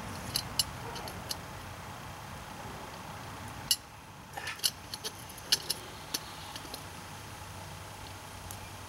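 Stick knocking and prying at the lid of a stainless steel mucket: a scattered series of sharp metallic clinks, the loudest a little under four seconds in, over a faint steady low hum.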